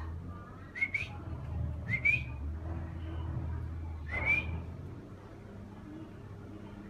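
Three short rising whistles, one at a time about a second apart, as a person whistles to a dog. A low steady rumble runs underneath.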